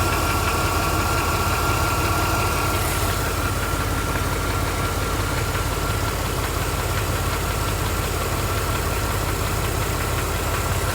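Chevrolet S10 Blazer engine idling steadily, with a thin steady high-pitched whine from the belt drive: the noise persists after a new serpentine belt and tensioner, and the owner turns to the idler pulley as the next suspect. A second, higher tone stops about three seconds in.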